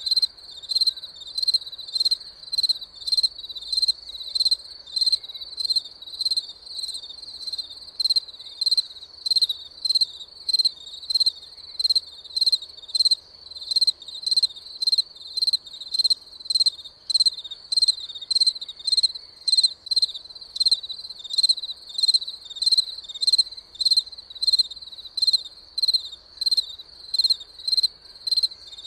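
A cricket chirping steadily, about two short pulsed chirps a second, high-pitched and evenly repeated.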